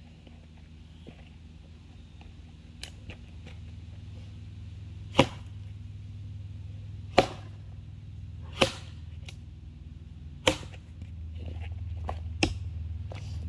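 A Council Tool Boy's axe with a 2.25 lb Dayton-pattern head chopping into a box elder log: four sharp chops about two seconds apart, with lighter knocks before and after.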